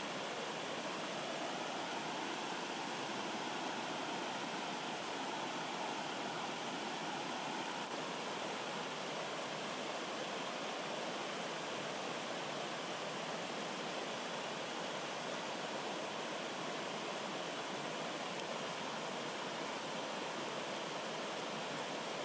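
Rocky forest stream flowing down small cascades over boulders: a steady babble of water.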